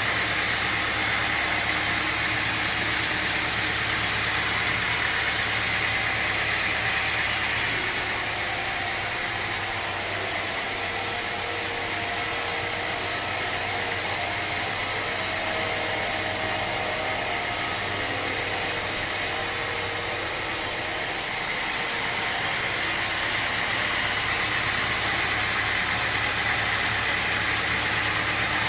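Sawmill machinery running steadily with a loud mechanical drone. From about eight seconds in until about 21 seconds, the sound turns brighter and hissier and loses some of its low rumble.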